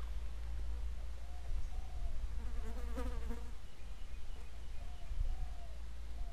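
Riverside ambience: a steady low hum with insects buzzing and a few faint, short bird calls, much like doves cooing.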